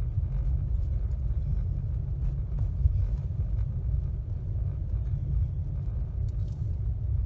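Car driving, with a steady low road rumble.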